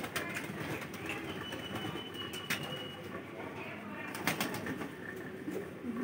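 Domestic pigeons cooing low, with a little wing flapping and a couple of sharp taps.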